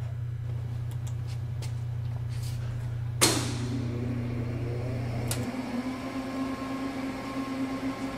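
Steady low electrical hum, then a sharp click about three seconds in as a motor starts and spins up, its whine rising in pitch and settling into a steady tone; the low hum cuts out about halfway through.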